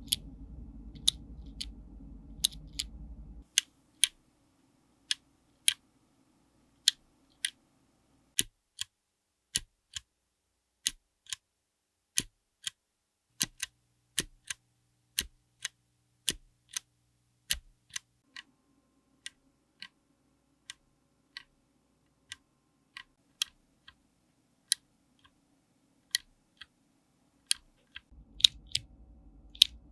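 Mechanical keyboard fitted with clicky switches, single keys pressed one at a time: sharp separate clicks at roughly one or two a second.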